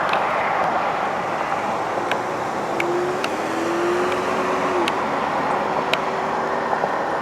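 Steady road and engine noise heard from inside a moving car's cabin, with a few faint clicks and a faint drawn-out hum in the middle.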